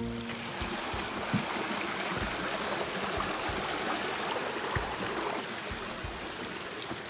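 Rushing stream water: a steady hiss, with a few soft low thumps now and then.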